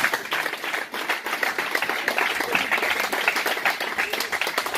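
Many people applauding together, a dense, unbroken run of hand claps.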